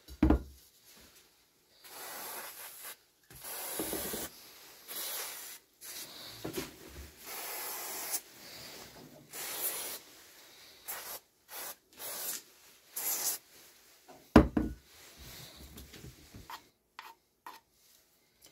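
Aerosol spray can hissing in a string of short bursts, about nine in ten seconds, as it coats a wooden panel. Two sharp knocks of wooden boards being handled, about half a second in and a second after the spraying stops, the second one the loudest sound.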